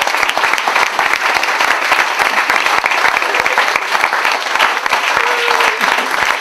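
Crowd applauding, many people clapping steadily and densely.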